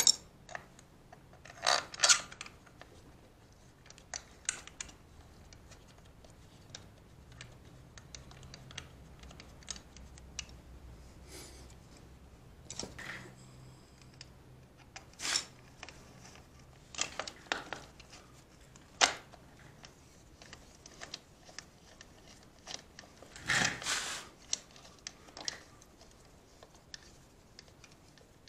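Scattered metallic clicks and taps of hand tools and bolts as a motorcycle's sprocket cover is fitted back on and its bolts are started by hand, with louder clusters of clinks about two seconds in and again late on.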